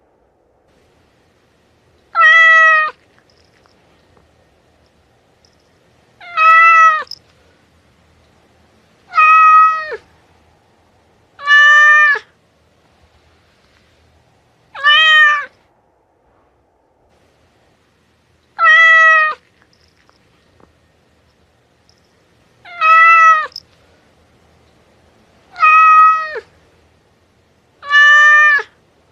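A domestic cat meowing: nine short meows, two to four seconds apart, each under a second long and much alike, dropping in pitch at the end.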